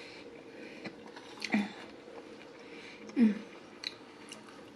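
Close-miked eating of a salad with crisp apple and walnuts: wet chewing with a few sharp crunches and clicks, and two short low voiced sounds falling in pitch from the eater, the louder one about three seconds in.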